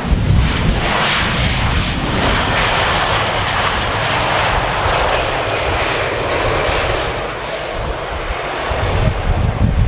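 Jet engines of an Airbus A320 rolling past on the runway: a steady noisy rush, loudest in the first few seconds and easing as the airliner moves away. Wind buffets the microphone near the end.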